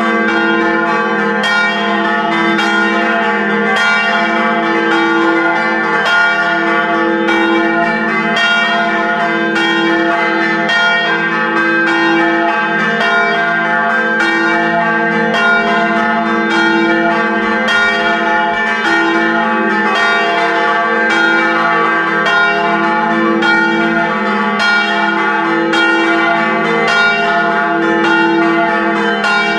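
Several church bells in a village bell tower, struck by ringers in the belfry in quick, even succession and pealing without a break.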